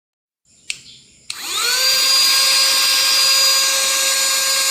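Portable cordless vacuum cleaner switched on: a click, then its small motor spins up with a rising whine about a second in and runs steadily at full speed with a high-pitched whine and rushing air.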